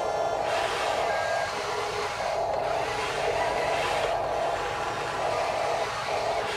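Small electric motors and plastic gearboxes of radio-controlled toy construction vehicles whirring in short bursts, starting and stopping every second or two as the wheel loader is driven.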